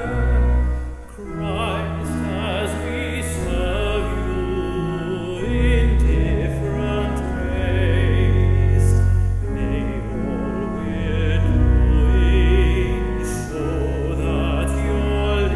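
A man singing a hymn solo with vibrato over a sustained pipe organ accompaniment, the low organ chords changing every few seconds.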